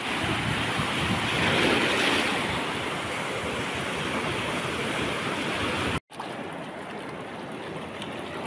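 Sea waves breaking and washing over a rocky, stony shore. The sound cuts out for a moment about six seconds in and comes back quieter.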